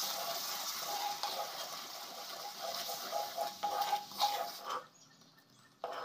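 Hot jaggery syrup sizzling and bubbling in a wok while a wooden spatula stirs it, with a few scrapes and knocks against the pan. The sizzle drops away sharply about five seconds in.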